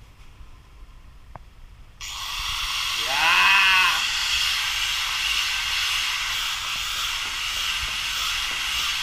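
Hitachi electric angle grinder switched on about two seconds in, then running unloaded with a steady high hiss and whine. About a second after it starts, a man gives a loud shout over it, his voice rising and then falling.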